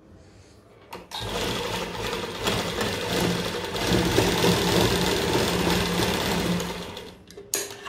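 Sewing machine running at a steady speed for about six seconds, from about a second in until it stops near the end, top-stitching a lace-lined neck piece onto cotton kurti fabric.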